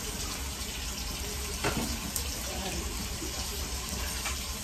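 Large metal pot of liquid heating on the stove toward a boil, giving a steady watery hiss. A few light clinks, the last as a glass pot lid is lifted over the pot near the end.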